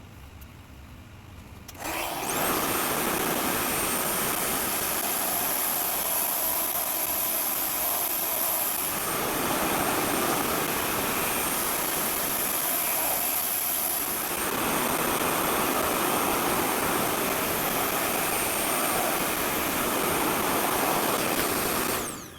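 RevAir reverse-air hair dryer running: a loud steady suction-and-blower rush with a high whine, switching on about two seconds in and cutting off near the end.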